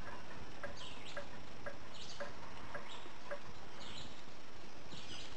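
Quiet background with faint high chirps about once a second and soft ticks about twice a second over a steady hiss.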